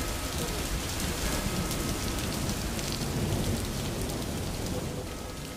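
Steady rain-like hiss over a low rumble, slowly fading out near the end.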